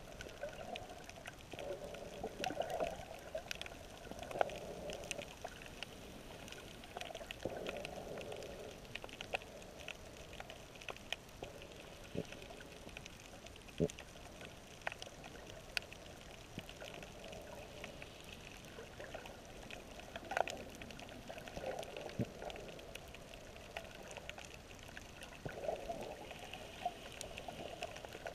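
Underwater ambience heard through a submerged camera: a steady watery hiss scattered with sharp clicks and crackles, and a muffled low rushing that swells and fades every few seconds.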